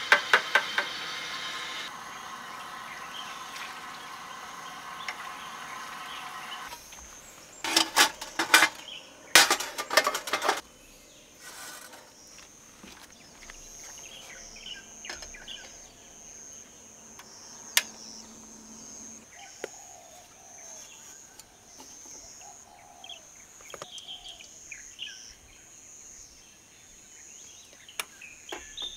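Insects chirping steadily in a high, even drone, with scattered short chirps. A hiss fills the first few seconds, and two quick bursts of clattering knocks come around eight and ten seconds in.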